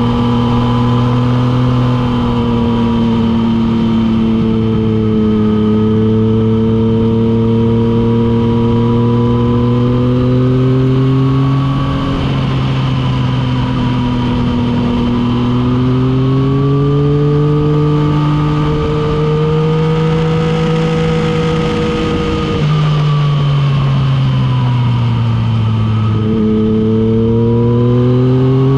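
Motorcycle engine pulling at road speed, its pitch slowly rising and falling with the throttle, dropping suddenly about three-quarters of the way through, then dipping and climbing again near the end. Steady wind rush runs underneath.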